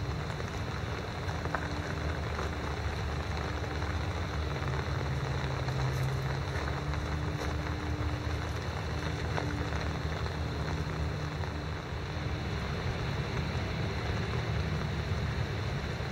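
Steady rain falling and pattering, an even hiss with a few faint drop ticks, over a low steady hum.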